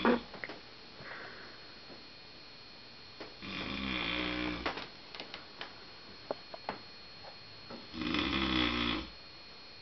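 A man snoring loudly while asleep: two long snores, each lasting about a second, some four and a half seconds apart, with a fainter breath a second in. He is said to snore like this only when sleeping on his back.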